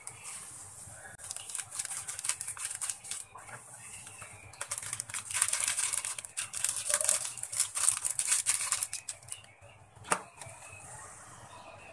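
A plastic jelly-powder sachet crinkles as banana jelly powder is shaken out of it into boiling water in a steel pot, giving a dense run of irregular crackles that is thickest in the middle. One sharp knock comes about ten seconds in.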